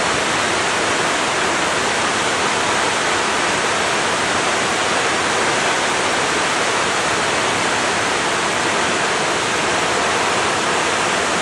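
Waterfall pouring into its plunge pool: a loud, steady rush of white water and spray that does not change.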